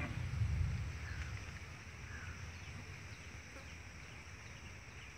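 Chickens clucking faintly a few times over a low rumble on the microphone, which is strongest in the first second and then fades.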